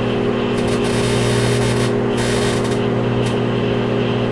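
Microwave oven running with a steady electrical hum, a piece of wood heating inside. Bursts of crackling hiss come and go over the hum, several times.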